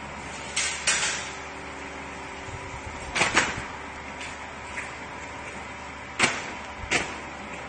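Double-chamber vacuum packaging machine running with a steady hum, broken by sharp knocks and clunks in three pairs as the lid and packs are handled.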